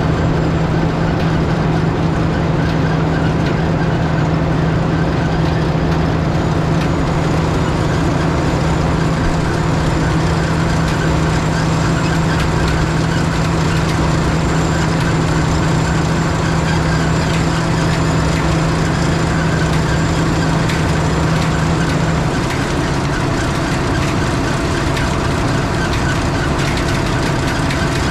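Tractor engine running steadily under PTO load, driving a forage wagon's beaters and conveyor as they unload chopped corn silage into a silage bagger. The engine's pitch dips slightly about twenty-two seconds in.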